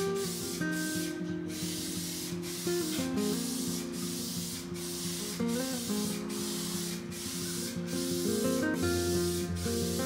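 Aerosol spray paint can spraying paint onto a bicycle fork in short passes: a hiss that stops and starts about twice a second with brief breaks.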